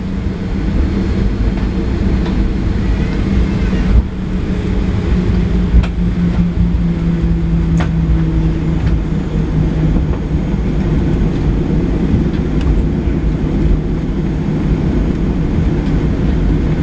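Cabin noise inside a Boeing 737-700 taxiing: its CFM56 jet engines humming at low thrust over a steady low rumble from the rolling airframe. The hum dips slightly in pitch about five seconds in, and there are two sharp knocks, about four and six seconds in.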